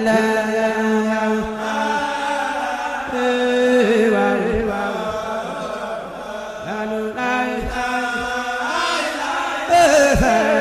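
Background music of chanted singing, the voices moving over a steady held low note.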